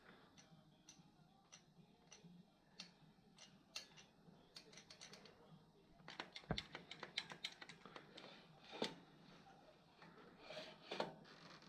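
Faint, scattered light clicks and taps, with a quick run of clicks about six seconds in, one deeper knock among them, and a couple of louder clicks near the end.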